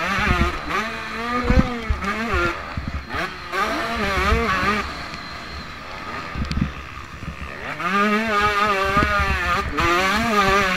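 Motocross bike engine heard up close from the bike, revving hard and dropping back several times as the rider accelerates, shifts and brakes through the track, over a rough low rumble.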